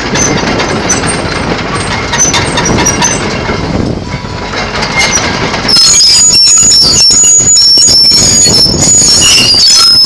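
Komatsu PC128US-2 excavator travelling on its steel tracks: a clanking rattle of the track chains over the running engine. About six seconds in it turns louder, with high metallic squeals from the tracks.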